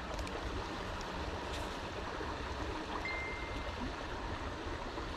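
Steady rush of flowing water, with a short high, steady tone about three seconds in.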